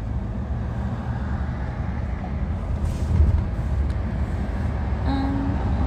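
Low, steady rumble of a car's road and engine noise heard from inside the cabin, with a brief bump about three seconds in.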